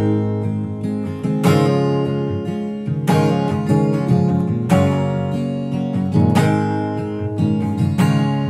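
Acoustic guitar strummed in a steady rhythm, with a strong stroke about every second and a half and lighter strokes between.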